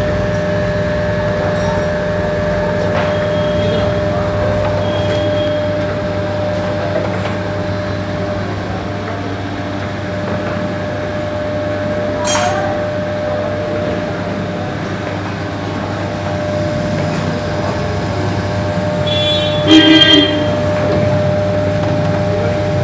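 Slitting-rewinding machine for paper rolls running steadily with a constant hum and whine, a sharp click about twelve seconds in, and a short, louder burst of noise near the end.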